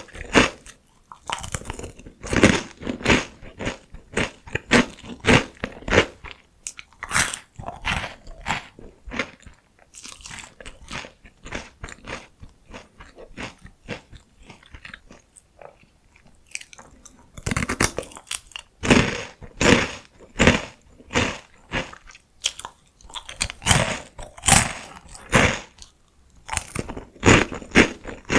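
Close-miked crunchy chewing of thin, crisp fried potato stick snacks, rapid crunches in runs that ease off to softer chewing in the middle, then pick up again.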